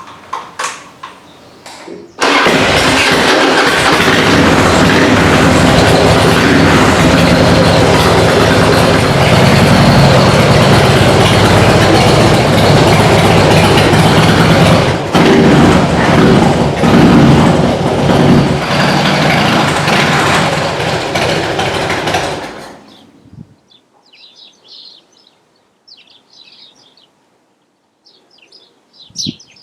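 Harley-Davidson Dyna Super Glide's V-twin engine running loudly, coming in suddenly about two seconds in and dying away about twenty seconds later.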